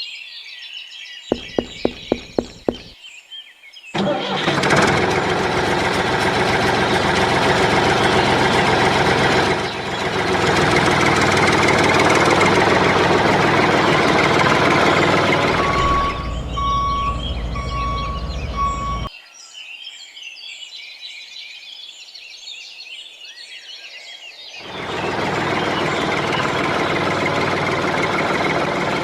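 A vehicle engine starting: a quick run of clicks, then the engine running loudly. About two thirds of the way through it gives way to a deep hum with a repeating beep, then drops out for several seconds before the engine noise comes back near the end.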